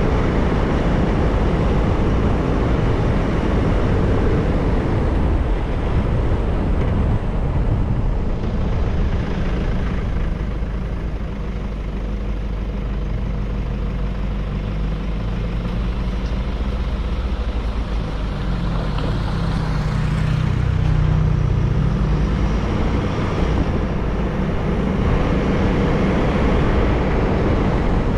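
Motorcycle on the move with a steady low rumble of engine and wind, and engine notes sliding up and down for a while midway through.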